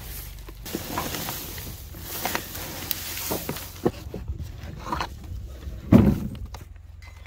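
Bark, pine needles and gum leaves rustling and clattering as they are tipped out into a compost bin, with scattered knocks and one heavy thump about six seconds in.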